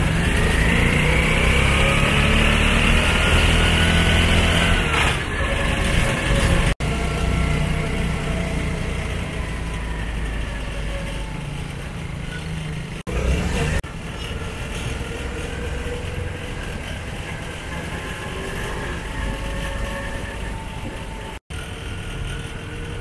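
Motor vehicle engine heard from on board while riding: for the first few seconds it revs up, rising in pitch as it accelerates, then runs more steadily and quieter. The sound cuts out briefly three times.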